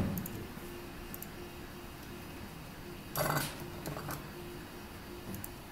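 A soldering iron set down in its metal stand with one short clatter about three seconds in, followed by a couple of light clicks as the small wooden part is handled.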